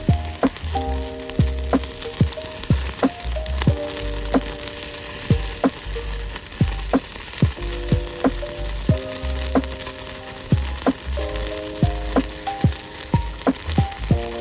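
Campfire crackling with frequent sharp pops, over background music with held chords and a bass line.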